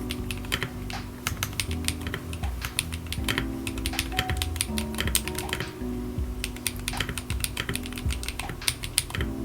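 Typing on a custom keyboard: quick, irregular keystroke clicks, over background music with held low notes.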